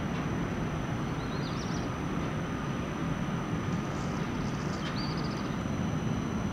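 Steady low outdoor rumble, with three short groups of high bird chirps about a second, four seconds and five seconds in.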